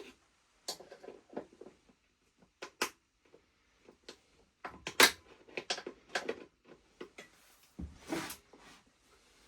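Irregular clicks, knocks and clinks of tools and metal parts being handled during motorcycle work, sharpest about five seconds in, with a longer scraping knock about eight seconds in.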